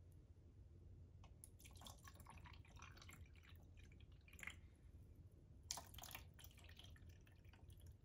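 Water poured from a plastic cup into the small plastic tubs of two toy mini washing machines, faintly trickling and splashing onto glass marbles. It comes in two pours, the second starting a little before halfway through with a sharper splash.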